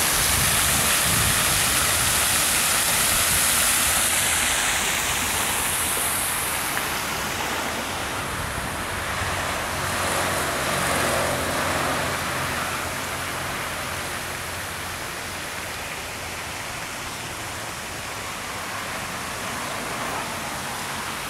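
Fountain water splashing down into its pool, a steady hiss that fades after about six seconds. Steady road-traffic noise follows, with a vehicle passing about ten seconds in.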